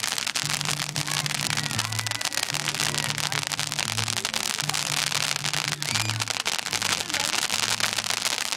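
Crackling fountain firework (a 500-gram fountain) burning, a dense continuous crackle of sparks, with music playing underneath in a slow repeating low phrase.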